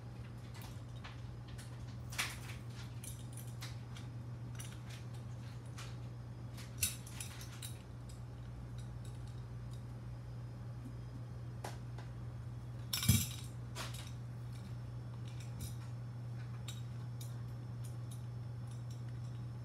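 Scattered small metal clinks and taps as a drone circuit board and tools are handled in a metal board holder, over a steady low hum. The loudest clink comes about two-thirds of the way through.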